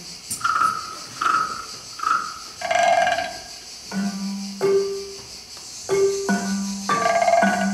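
Balafon, a wooden xylophone with gourd resonators, struck with mallets: a melodic phrase of ringing, fading notes, with lower notes coming in about four seconds in.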